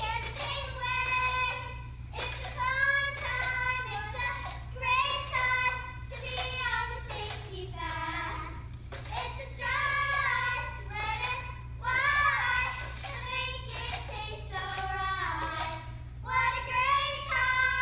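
Children singing a song, with long held notes that bend in pitch.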